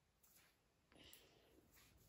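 Near silence: room tone, with a few faint clicks of small plastic Lego pieces being handled and pressed together.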